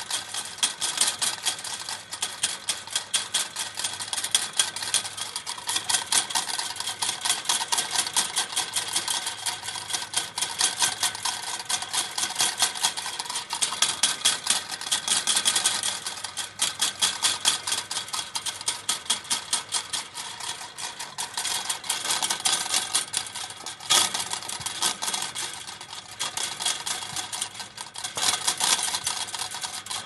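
Metal chain link fence being shaken, its wire mesh rattling in a fast, dense clatter with uneven surges and a sharp louder clank about two-thirds of the way through.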